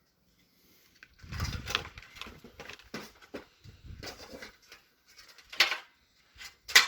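Hard plastic tool casings being handled and fitted together by hand: scattered clicks, knocks and rubbing, with two sharper knocks about a second apart near the end.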